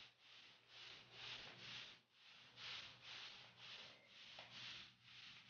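Squares of cardboard under bare feet scraping across a hardwood floor as the feet slide out and in, a faint rhythmic swish about two to three times a second.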